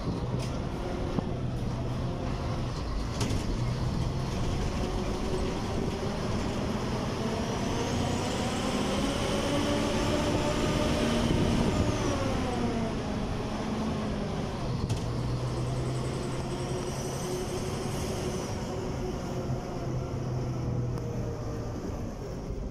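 Engine and road noise of a moving road vehicle, heard from aboard. The engine's pitch climbs steadily for several seconds in the middle, then drops away about twelve seconds in before settling back to a steady run.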